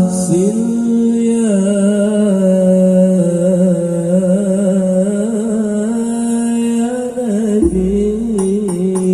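A solo voice singing long held notes with wavering ornaments, breaking briefly and resuming near the end, where a low rumble comes in for about a second and a half.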